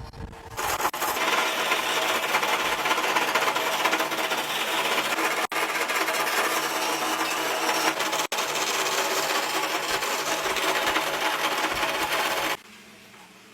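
A power tool running steadily against metal, a dense grinding, rubbing noise. It starts about half a second in, cuts out very briefly twice, and stops suddenly about a second before the end.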